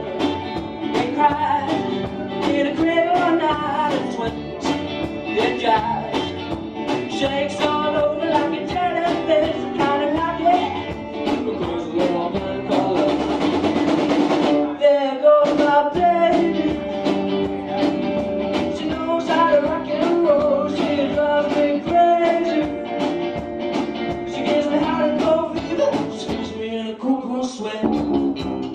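Live rock band playing amplified electric guitars, bass and drum kit, with a vocalist singing into a microphone.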